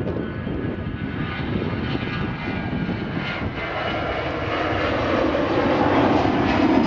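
Airbus A320 jet engines at take-off thrust as the airliner rolls, lifts off and climbs away: a steady rushing engine noise that grows louder over the second half.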